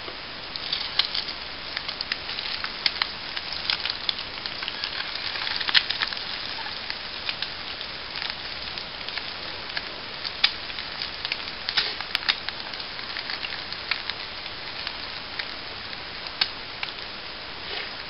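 Eggs frying in a pan over a small twig fire in a Swiss Army Volcano stove: a steady sizzling hiss broken by frequent sharp crackles and pops, one of the loudest about six seconds in.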